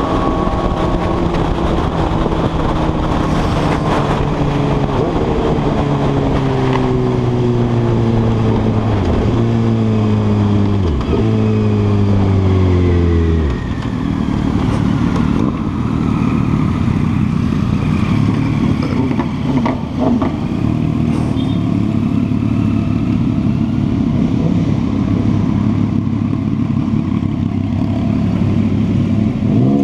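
Suzuki GSX-R1000 inline-four sport bike engine slowing down through the gears with wind rush. In each gear the pitch falls, and it jumps up at each of three downshifts. About halfway through it drops to low revs and runs unevenly as the bike rolls slowly.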